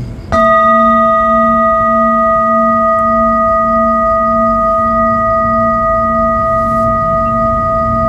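A large metal singing bowl is struck once, about a third of a second in, and then rings on steadily with several clear tones stacked one above another. The lowest tone pulses slowly.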